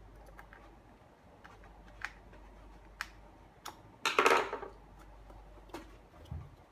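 Scattered sharp clicks and knocks of hard plastic brush parts and small hardware being handled during assembly, with a louder half-second clatter about four seconds in and a low thud near the end.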